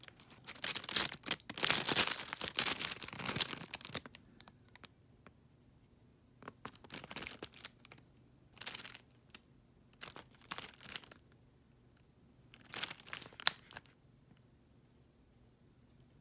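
Thin clear plastic bakery bag crinkling as it is handled and opened. It comes in bursts: a long loud stretch in the first few seconds, then several shorter bursts, with a sharp snap about thirteen seconds in.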